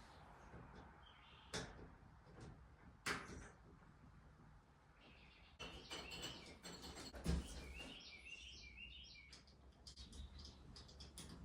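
Faint bird chirps, a short run of them about eight seconds in, over quiet outdoor background, with a few sharp clicks and a knock scattered through.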